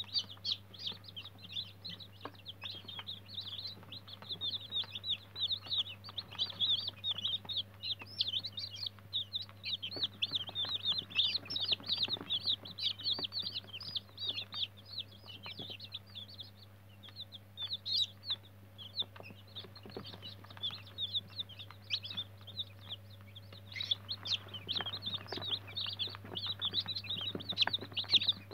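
A large crowd of downy chicks peeping nonstop, many short high-pitched peeps overlapping, over a faint steady low hum.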